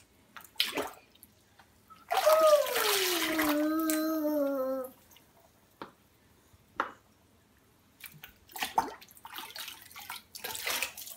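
Bath water splashing and dripping as a toddler scoops and pours with a plastic cup in a kitchen sink: scattered short splashes, then a loud rush of water lasting about three seconds from about two seconds in, joined by a long sound sliding down in pitch and then levelling off. More splashes and drips come near the end.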